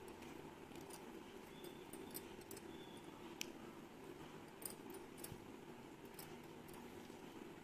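Quiet handling sounds: faint scattered ticks and rustles of fingers pinching the stalks off jasmine buds, over a steady low room hum.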